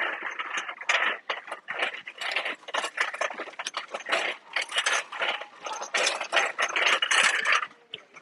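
Nylon windbreaker fabric rustling and crinkling right against the microphone as the jacket is handled, a dense run of irregular scratchy crackles that stops shortly before the end.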